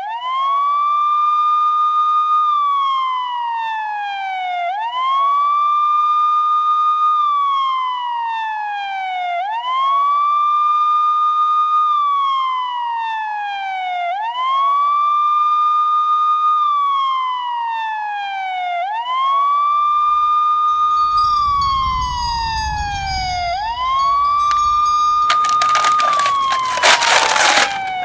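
Police siren on a slow wail, rising quickly to a held high note and then gliding down, about once every five seconds. A low rumble joins about twenty seconds in, and a brief loud burst of hissing noise comes near the end.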